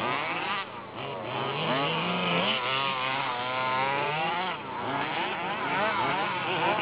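Several 1/5-scale gas RC off-road buggies racing, their small two-stroke engines revving up and backing off, pitches rising and falling over one another.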